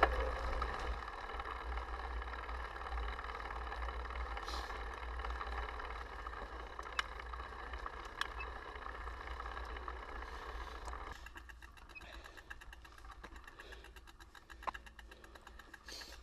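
Mountain bike riding over a dirt fire road: wind rumbling on the camera's microphone over tyre crunch and drivetrain noise. About eleven seconds in it gets quieter and a rapid, even ticking sets in, the rear hub's freewheel clicking as the bike coasts.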